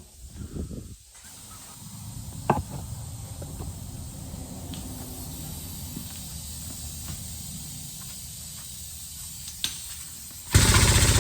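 A low steady mechanical rumble with a few sharp clicks and knocks. Near the end, a much louder machine starts abruptly with a rapid, even hammering.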